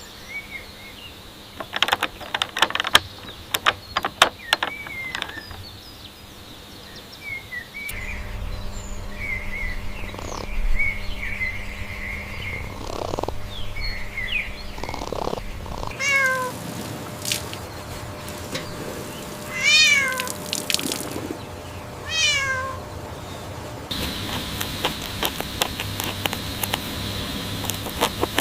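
Cats meowing: a series of short, arched calls, with some sharp clicks and knocks in the first few seconds.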